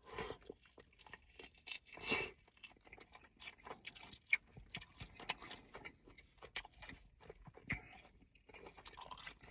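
Close-up eating sounds of crispy fried chicken wings: irregular crunches, bites and wet chewing clicks, with one sharper crunch about four seconds in.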